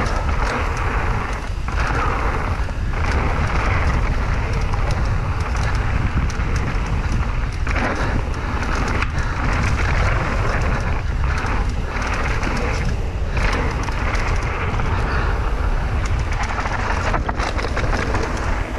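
Wind buffeting the microphone over a steady rushing noise, with a heavy low rumble that rises and falls throughout.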